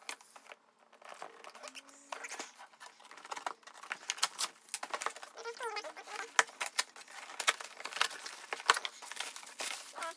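A cardboard shipping box being opened by hand: flaps pulled apart, with rustling and crinkling of the plastic packaging inside. It is a rapid run of small crackles and snaps that starts sparse and gets busier after the first couple of seconds.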